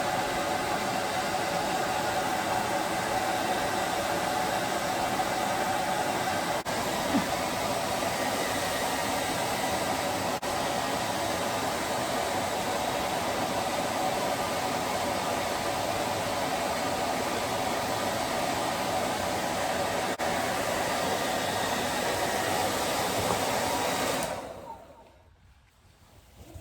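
Handheld hair dryer blowing steadily, switched off about two seconds before the end, its whir dying away quickly.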